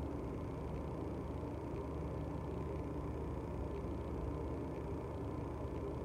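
Steady low hum and hiss of room noise. It stays even throughout, with no distinct events.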